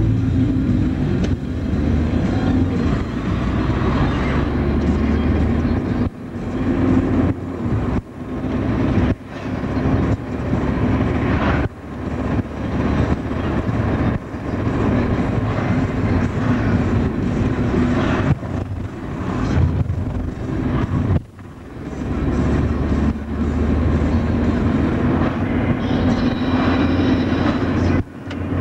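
Car engine and road noise heard from inside the cabin while driving, a steady low drone. The sound drops off sharply several times and builds back up, as the engine does with gear changes.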